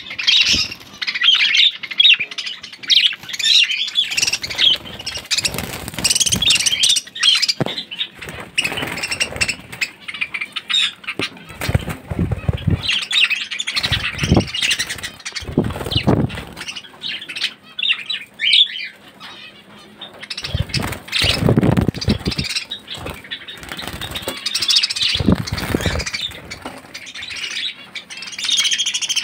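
A flock of caged budgerigars chattering and squawking in a dense, continuous stream of high chirps, with several short bursts of wing flapping as birds flutter about the cage.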